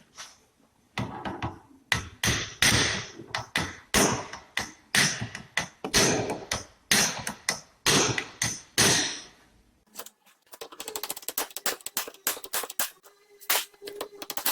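Hammer blows on a seized steel tie-rod lock nut, with a second hammer held against the opposite side as a backer. A run of sharp, ringing metal strikes, about two to three a second, works the nut loose on the tie-rod thread. The strikes stop about nine and a half seconds in, and a fast run of light clicks follows.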